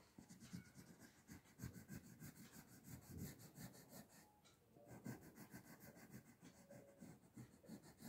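Faint scratching of a crayon on paper in short, repeated strokes, as a drawing is outlined and coloured.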